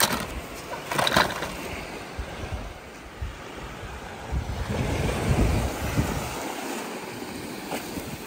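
Surf washing up on a sand beach, with wind buffeting the microphone in low gusts. A couple of sharp clicks near the start.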